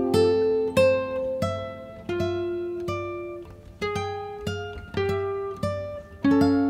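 Background music: a slow melody of single plucked acoustic guitar notes, each ringing and fading before the next.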